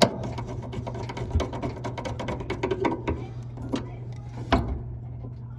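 Screwdriver turning in the Phillips screw that holds a dryer idler pulley, a quick run of small metal clicks for about three seconds, then a few single clicks.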